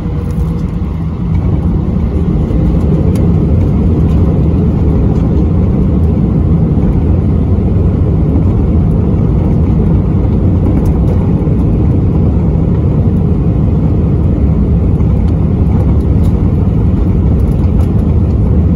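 Jet airliner's takeoff roll heard from inside the cabin: the engines at takeoff power make a loud, steady, low-pitched noise that grows louder about a second and a half in and then holds.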